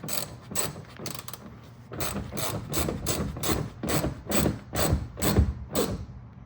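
Hand ratchet socket wrench clicking in repeated short strokes, about two a second and louder from about two seconds in, as the liner's mounting bolts are tightened.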